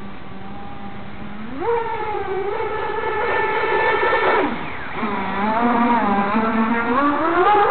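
Electric RC race boat running at speed, its brushless motor and propeller drive giving a high whine that jumps up in pitch a little under two seconds in, falls away around four and a half seconds, then climbs again toward the end as the throttle is opened. The flex drive cable is failing during this run, and the drive can be heard going.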